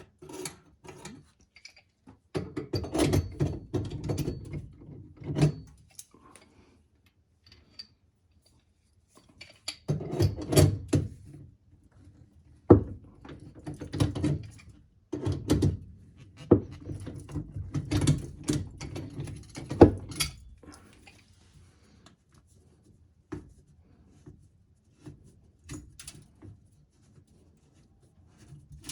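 Knocks, scrapes and rubbing from hand work with tools and a drip pan under a sink, during removal of the sink trap. The sounds come in several bursts with quiet gaps between them, and there are a couple of sharp clicks.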